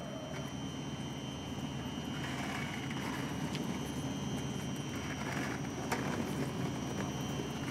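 Skateboard wheels rolling on a concrete platform: a steady low rumble with a few faint clicks as the wheels cross joints in the slabs.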